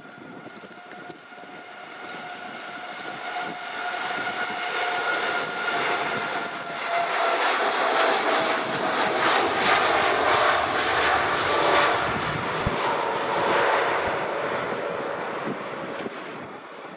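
Jet airliner passing by: a high engine whine slides slowly down in pitch as the rushing jet noise swells to a peak about eight to twelve seconds in, then fades as the aircraft moves away.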